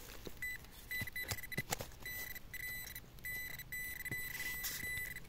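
Metal detector beeping at one steady high pitch, in repeated on-off stretches from short blips to about a second long, signalling buried metal in the dig hole. A few sharp knocks from digging fall among the beeps.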